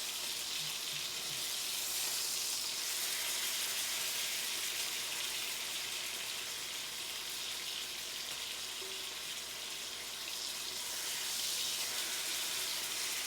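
Chicken pieces sizzling as they pan-fry in hot olive oil, a steady crackling hiss that swells a little about two seconds in and again near the end.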